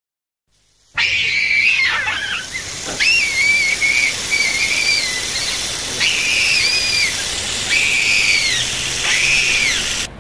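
Whistling: after about a second of silence, a string of short wavering whistled notes, each falling off at its end, over a faint steady hiss.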